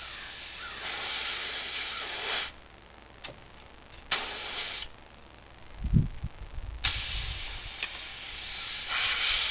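Air hissing in bursts from a punctured skid steer tire while a plug is worked into the hole, cutting in and out as the tool moves, with a couple of dull knocks.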